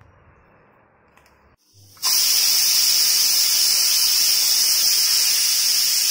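Aluminium pressure cooker's weight valve whistling as it vents steam: a loud, steady high-pitched hiss that starts suddenly about two seconds in. The cooker has come up to pressure.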